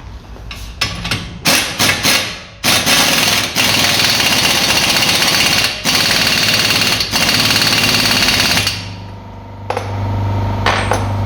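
Impact wrench on a 36 mm twelve-point socket tightening the driveshaft's hub nut. It gives a few short bursts, then a long run of rapid hammering blows broken by brief pauses. A steady low hum follows near the end.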